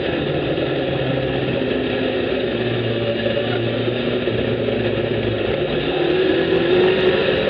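A Suzuki Hayabusa-powered sandrail's inline-four engine under way. The revs drop as it begins, run lower with small shifts in pitch, then climb again about six seconds in, over a steady rushing noise.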